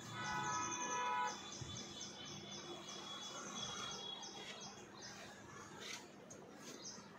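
A small bird chirps over and over, short high chirps about three a second, fading out about five seconds in. A steady held note sounds under it for the first second.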